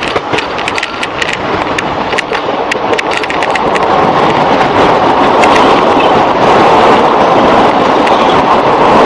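Running noise of a moving passenger train heard from an open coach doorway. The wheels clatter and click over the rails in the first few seconds, then about four seconds in this gives way to a louder, steadier rush.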